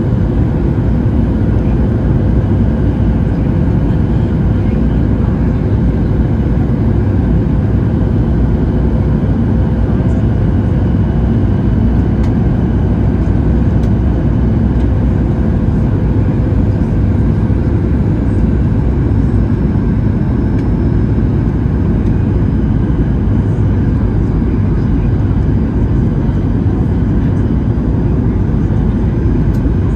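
Steady engine and airflow noise of a Boeing 737-800 with CFM56-7B engines, heard from inside the passenger cabin: an even, deep rush with a faint steady hum and no change in level.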